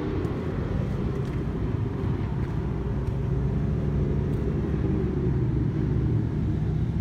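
A car engine running at low revs, a steady low rumble that grows a little louder toward the end.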